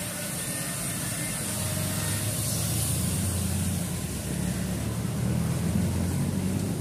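A steady low mechanical hum under an even hiss, getting a little louder about a second and a half in.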